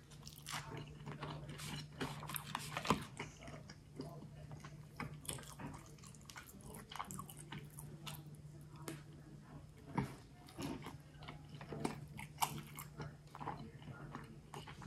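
A person chewing a mouthful of sushi roll, with many small, irregular wet clicks and bites from the mouth. A steady low hum runs underneath.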